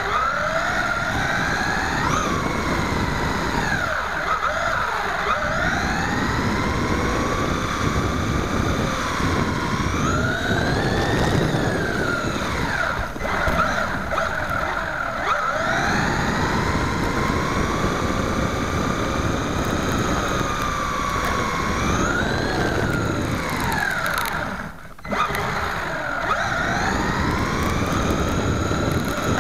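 Electric drive motor and gears of a WLtoys A979 1/18-scale 4WD RC truck whining, the pitch rising and falling over and over with the throttle, over rough tyre and drivetrain noise on a concrete floor, heard close up from a camera riding on the truck. About 25 s in, the whine drops away briefly as the throttle is let off, then picks up again.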